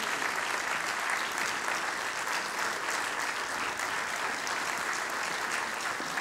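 Audience applauding steadily: dense clapping from many hands.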